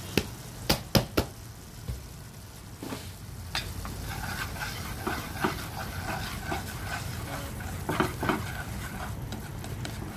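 Chunky tomato sauce cooking in a nonstick frying pan while it is stirred with a wooden utensil. A few sharp knocks come in the first second or so.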